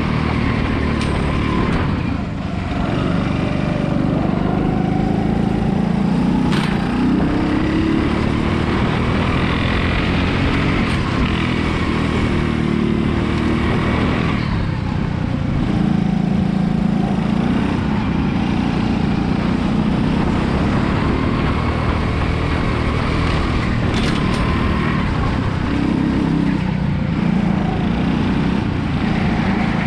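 RiMO rental kart's engine heard on board at full racing pace, its pitch rising along the straights and dropping off sharply three times under braking for corners. A couple of brief knocks come from the chassis.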